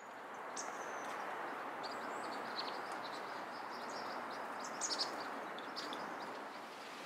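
Outdoor ambience: small birds chirping in short, high, scattered calls, a cluster of them about five seconds in, over a steady soft hiss.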